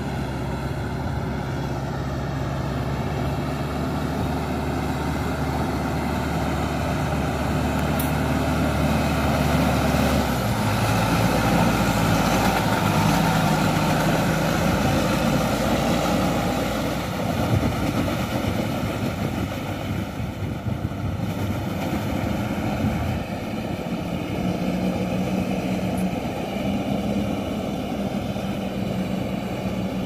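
Farm tractor engine running steadily under load as the tractor drags a tilling implement through a flooded, muddy paddy. It grows louder as it comes close near the middle, its engine note shifts as it passes, and it eases off as it moves away.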